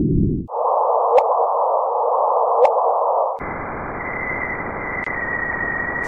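Gravitational-wave signal of two colliding black holes converted to sound. It is a band of hiss that shifts higher in pitch about half a second in and again about 3.5 s in, with two short rising chirps, each with a click, about 1 and 2.5 seconds in. A steady high tone sounds through the last part.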